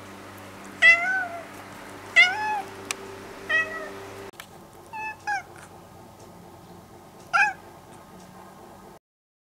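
Domestic cat meowing: three drawn-out meows about a second and a half apart, then two short meows in quick succession and one more meow near the end.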